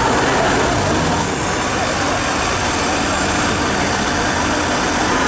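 Engines of several off-road 4x4 vehicles running steadily, with people's voices over them.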